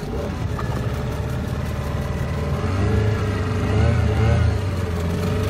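Small outboard motor running and speeding up as the boat gets under way, its low engine note coming up at once and growing louder to a peak about four seconds in.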